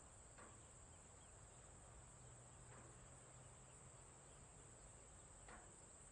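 Faint outdoor insect chorus: a steady, high-pitched chirring with a low hum beneath it and three short, faint falling calls.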